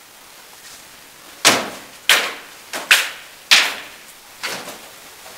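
Rattan weapons striking shield and armour in a fast exchange of blows: about seven sharp cracks, some in quick pairs, from about a second and a half in to near the end, each ringing briefly off hard walls.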